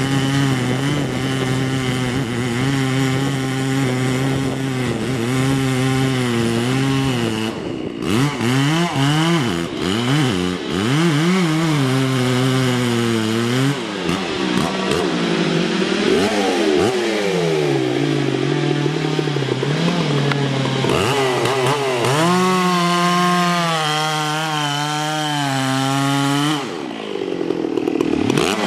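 Two-stroke chainsaw cutting into a Douglas fir trunk. The engine holds a steady pitch under load for long stretches, then swings up and down in pitch several times as the throttle is eased and opened, from about eight to fourteen seconds in and again near the end.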